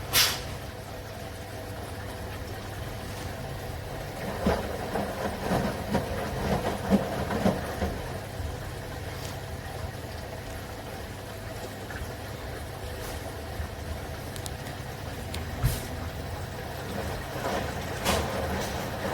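Front-loading washing machine running: a steady mechanical hum, busier and uneven for a few seconds early on, with a few sharp clicks.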